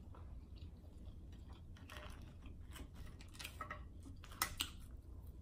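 Faint clicks and rustles of boiled crab-leg shells being handled on a plate, with a sharper click about four and a half seconds in.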